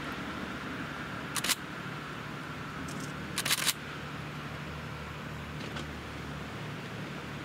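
Steady low hum with two short bursts of rapid clicking, about one and a half and three and a half seconds in.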